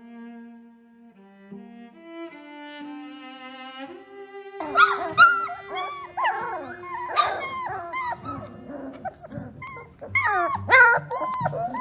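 Soft music with long held notes. From about five seconds in, a puppy squeaks, whines and yips in many short high glides as it yawns, and the calls grow louder near the end.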